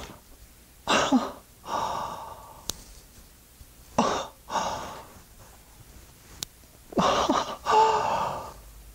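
A man's exaggerated, acted gasps and sighs, three times a few seconds apart, each a short breath followed by a longer one that fades out.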